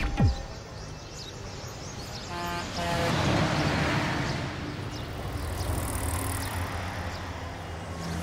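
Road traffic: vehicles passing with steady engine and tyre noise, and a horn tooting briefly about two and a half seconds in.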